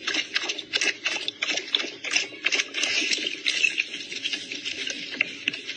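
Dog lapping water from a stainless steel bowl: quick, irregular wet laps and splashes, several a second.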